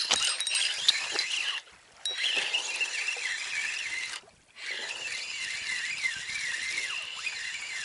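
Spinning reel being cranked to wind in line, a whirring squeal that wavers up and down in regular waves. A few handling clicks come at the start, and the sound drops out briefly twice.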